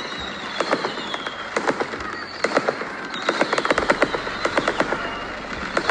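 Fireworks crackling: a dense, irregular run of sharp pops and crackles in quick clusters, with a few faint falling whistles.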